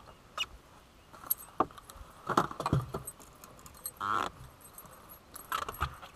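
Metallic clinks and rattles of a freshly landed bass being handled and unhooked. Scattered sharp clicks and short clatters, the loudest about two and a half seconds in, with a brief rustling burst around four seconds.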